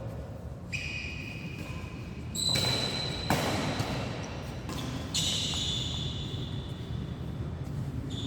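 Badminton play in an indoor hall: a sharp hit about three seconds in, with high, drawn-out squeaking tones that come in three times.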